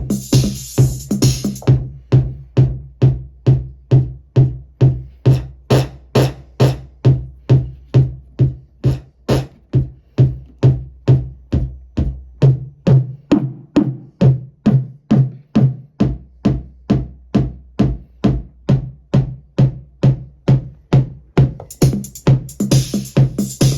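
Synthesized kick drum from a Weston Precision Audio module, repeating steadily about twice a second while its tone is dialled in; the deep low end drops out for a few seconds past the middle and then returns. A hissy, hi-hat-like noise rides along with the hits at the start and again near the end.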